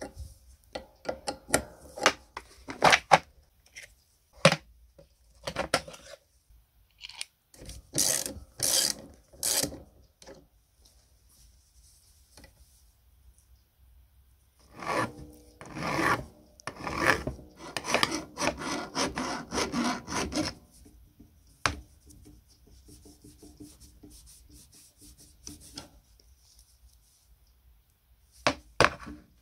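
A steel spanner and the rusty steel parts of an old clay-pigeon trap's throwing arm clinking and scraping on a wooden workbench as a nut is undone and the arm taken apart. A longer run of rapid rasping scrapes comes about halfway through.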